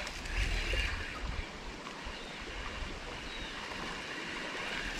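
Shallow creek water running steadily, an even rush of flowing water, with a brief low rumble about half a second in.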